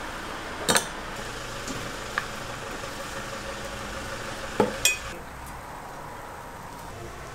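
Sharp metallic clicks and clanks from the cast-iron fish-shaped bungeoppang moulds and metal tools, over a steady hiss; the loudest are two clanks close together a little past halfway, and the hiss thins soon after.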